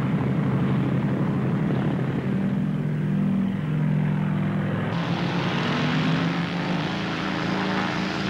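Scottish Aviation Twin Pioneer's two Alvis Leonides radial piston engines running at take-off power, a steady propeller drone as the aircraft makes its short take-off run. The tone changes abruptly about five seconds in.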